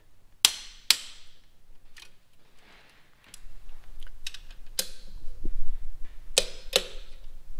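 Click-type inch-pound torque wrench breaking over with sharp metallic clicks as supercharger bolts reach their set torque of 156 inch-pounds. There is a pair of clicks near the start, one in the middle and another pair near the end, with lighter clicks in between.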